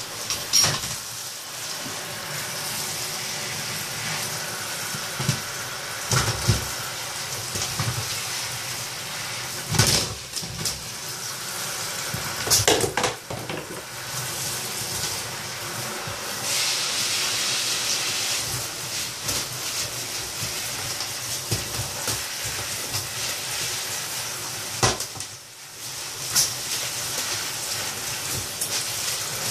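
Handheld shower spray hissing steadily onto a blue-and-gold macaw and the plastic bucket it perches on, with a few sharp knocks and splashes as the wet bird flaps its wings.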